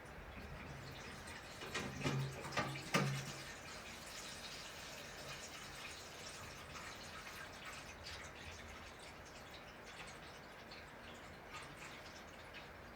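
Water dripping in many small, irregular ticks, with a few louder knocks about two to three seconds in.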